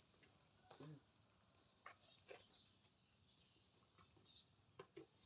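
Near silence, with a faint, steady, high-pitched insect chorus and a few faint brief sounds.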